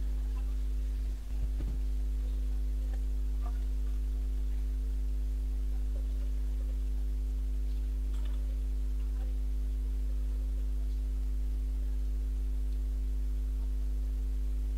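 Walton refrigerator compressor running with a steady electrical hum, with a few faint ticks over it.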